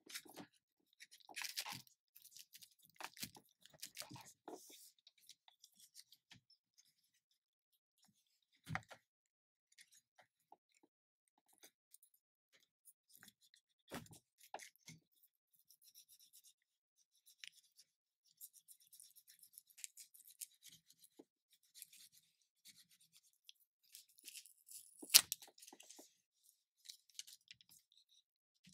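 Plastic pry tool and gloved hands working a battery cell free of its adhesive inside a MacBook Pro's aluminium case: scattered quiet scrapes, rustles and clicks, the loudest a sharp click about 25 seconds in.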